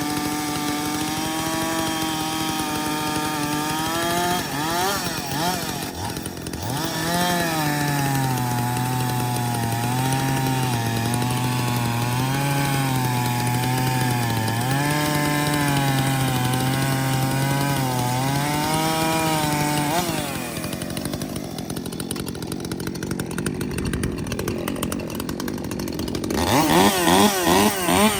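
Two-stroke gas chainsaw running hard at high revs. A few seconds in, its pitch swings, then drops much lower and wavers for about twelve seconds, as when it is pulled down cutting into wood. Near the end it revs up and down again.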